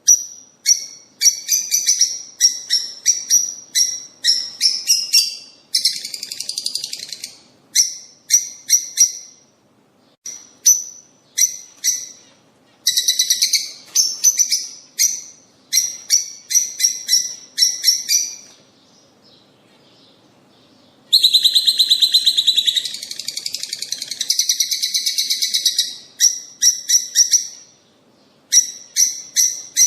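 A songbird singing: quick runs of short, high chirped notes broken by longer dense trills, with a brief pause about two-thirds of the way through.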